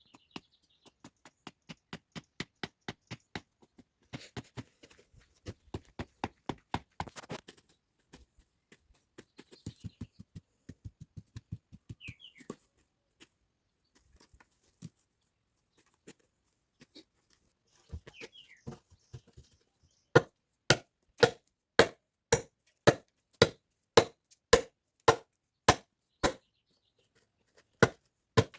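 Firewood being chopped by hand with a bladed tool. A run of quicker, lighter strikes comes first. Then, about two-thirds of the way in, heavy, evenly spaced blows start, about two a second.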